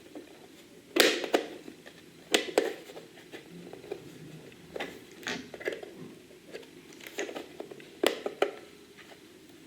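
Handling noise: a series of sharp clicks and knocks as objects are picked up and set down, the loudest about a second in and again near the end.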